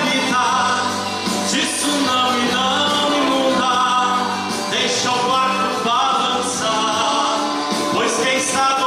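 A man singing a Portuguese gospel hymn into a handheld microphone, over steady instrumental accompaniment.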